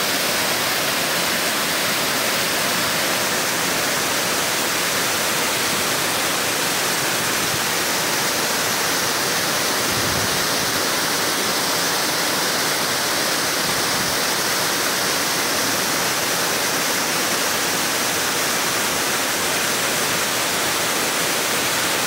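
Waterfall pouring into a rocky pool: a steady, unbroken rush of falling water.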